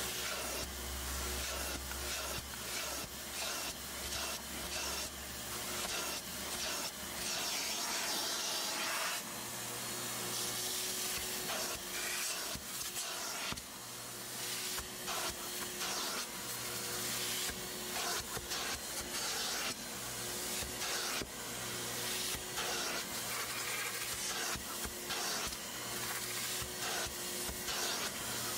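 Aqua Pro Vac hot-water carpet extractor running, its clear upholstery tool drawn over a cloth car seat: a steady vacuum hiss with rough slurping strokes as shampoo water is sucked out of the fabric. A low hum cuts in and out several times.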